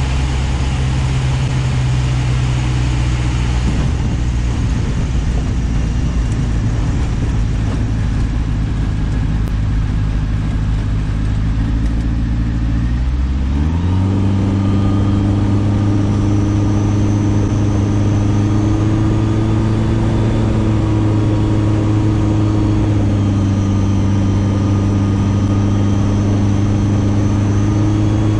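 Kitfox light aircraft's piston engine and propeller running at low power on the ground, heard from inside the cockpit. About halfway through the throttle is opened: the pitch rises quickly, then holds as a higher, slightly louder steady note.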